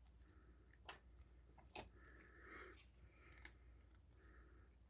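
Near silence with a few faint, sharp clicks and crunches: a cat chewing crunchy treats.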